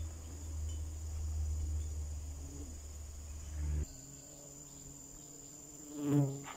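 Low steady hum of the suction pump drawing stingless-bee honey from the hive's honey pots through a tube, cutting off abruptly about four seconds in. Under it runs a steady high-pitched trill of crickets.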